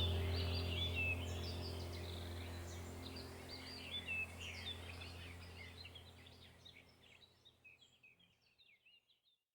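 Birds chirping and calling over a steady low drone, the whole fading out to silence about seven seconds in.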